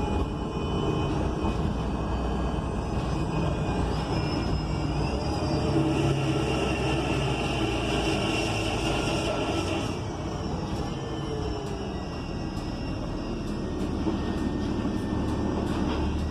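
2021 ENC Axess bus under way, heard from inside the cabin: the Cummins Westport L9N natural-gas engine and Voith D864.6 automatic transmission drone steadily over road noise. A whine rises in pitch about four seconds in, holds, and fades about ten seconds in.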